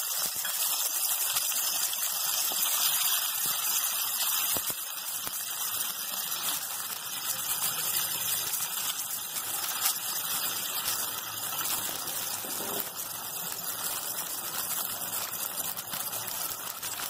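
Tomato purée sizzling steadily in hot oil in a frying pan, stirred with a wooden spatula.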